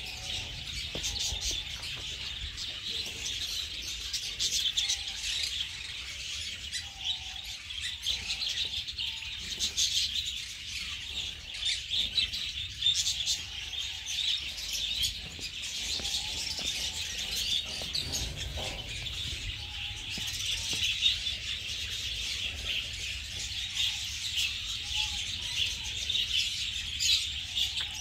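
Many small birds chirping and twittering together in a dense, continuous chorus, with occasional fainter lower calls.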